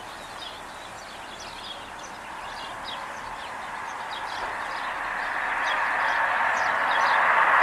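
Small birds chirping over and over, with a rushing noise that grows steadily louder through the second half.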